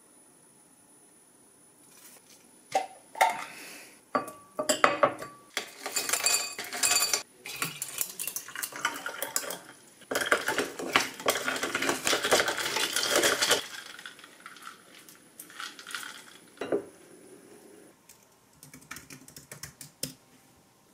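Ice and a metal spoon clinking in a drinking glass, then a bottled drink poured over the ice with a dense hissing pour for a few seconds. Near the end, light clicking of keys on a computer keyboard.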